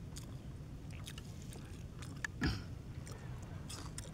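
A man chewing raw fish, with small wet clicks of eating and handling the flesh, over a low steady rumble. A short, louder rush of noise comes about two and a half seconds in.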